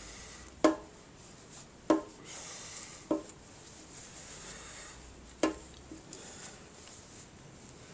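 Four sharp knocks on a dented sheet-metal gas tank, spaced a second or two apart, each with a brief metallic ring, as the dents are being worked out.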